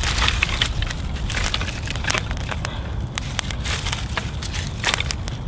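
Split wooden kindling sticks clacking and knocking against each other, in irregular clicks, as they are picked up from a pile and stacked onto a freshly lit, smoking fire lay. A steady low rumble runs underneath.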